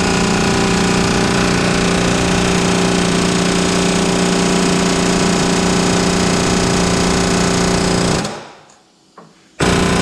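Pneumatic air hammer driving a punch against the rust-seized front steering spindle of a John Deere 175 riding mower, hammering rapidly and without a break. It stops suddenly a little after eight seconds and starts again just before the end. The spindle is moving under it, but really slowly.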